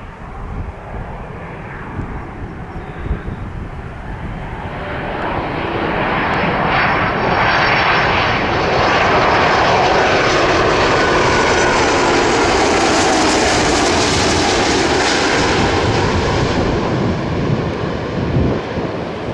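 Airbus CC-330 Husky twin-jet airliner on landing approach, its engine noise swelling as it passes close by and then easing as it moves away. The engine whine drops in pitch as it goes past.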